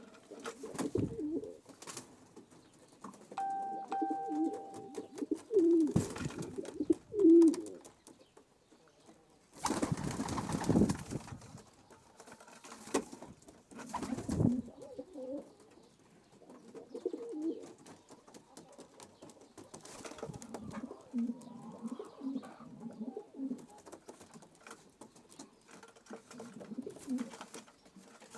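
Pigeons cooing, with low throaty coos repeating on and off throughout. About ten seconds in there is a brief, louder rush of noise.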